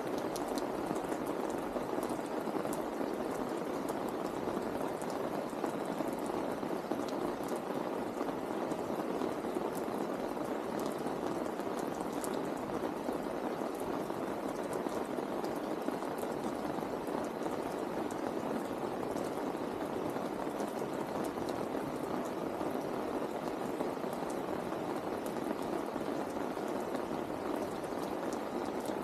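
Steady rain falling, an even splashing hiss with scattered sharper drip ticks.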